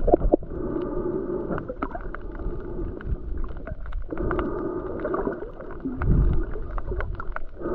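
Motor scooter engine running while riding, heard as a steady, muffled hum, with wind buffeting the microphone. There is a heavy gust about six seconds in.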